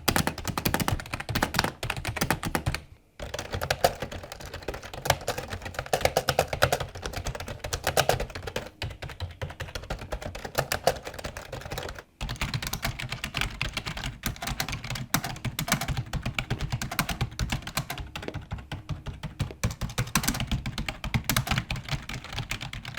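Computer keyboard being typed on fast, a dense run of keystroke clicks. Typing stops briefly about 3 seconds in and again about 12 seconds in.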